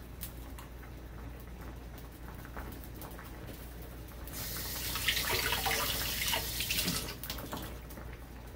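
Kitchen tap running for about three seconds, starting abruptly a little past the middle, over a steady low hum.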